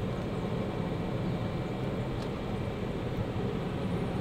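Steady low hum with a hiss of background noise, with a faint tick about two seconds in.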